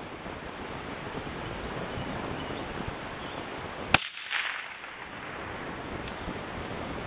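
A single rifle shot about four seconds in, a sharp crack followed by a short trailing echo, over steady wind and rain noise.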